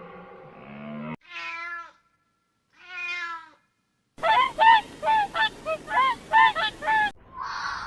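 A cow's low moo ends about a second in. Then come two separate cat meows, and a rapid run of about ten short honking calls from waterfowl.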